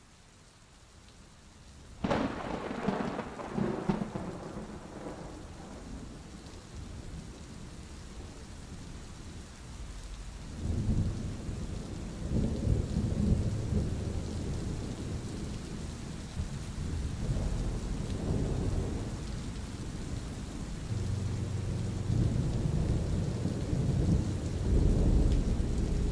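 Thunderstorm: steady rain with a sudden crack of thunder about two seconds in, then repeated low rumbles of thunder.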